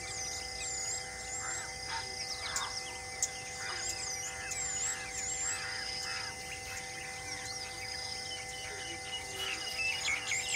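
Wild birds calling with repeated short, looping high whistles over a steady insect hiss.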